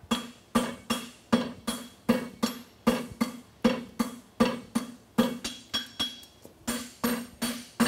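Hand hammer striking a red-hot steel bar on a steel anvil in a steady rhythm, about two and a half to three blows a second, each blow followed by a short ringing of the anvil. The smith is drawing out the rein of a pair of tongs.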